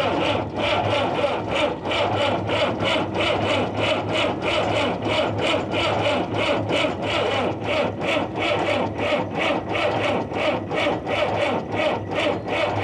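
Caterpillar 3054B four-cylinder diesel being cranked over by its starter, a steady rhythmic chug of about four compression pulses a second, turning over without catching.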